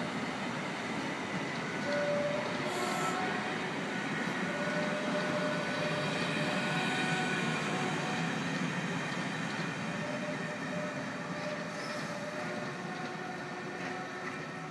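Mk3 passenger coaches rolling past on the rails, a steady rumble of wheels on track with short, faint squealing tones coming and going.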